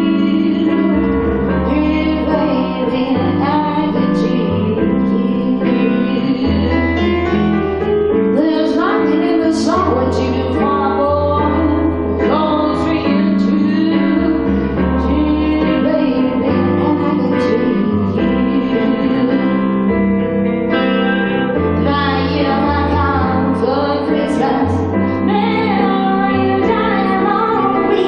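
Live band music: a woman singing a slow song over electric keyboard chords and a deep bass line.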